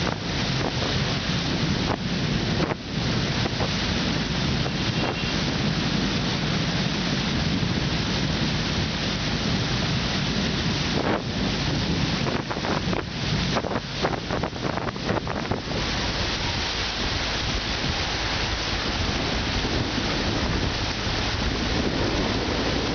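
Wind buffeting the microphone from a moving vehicle: a steady rushing noise with a low rumble beneath, broken by a few brief dips and crackles between about 11 and 16 seconds in.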